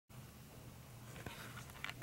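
Faint rustling and a few soft clicks as a dog noses at bedding, over a low steady room hum.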